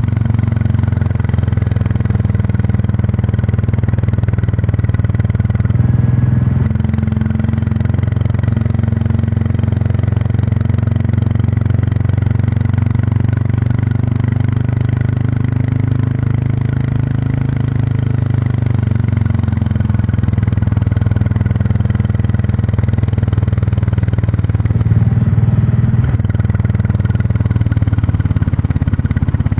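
Royal Enfield Classic 350's single-cylinder engine and exhaust running steadily while riding, with small shifts in engine pitch about six seconds in and again near the end.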